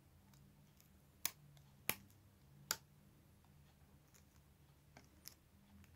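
Three sharp clicks in the first half, then two fainter ticks near the end, from small parts being handled and set down on a hard tabletop, over a faint steady low hum.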